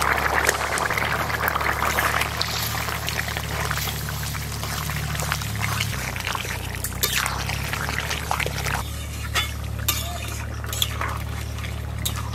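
Curry bubbling at a full boil in a metal wok over a wood fire, with a metal spatula stirring through it and clinking against the pan several times, mostly in the second half.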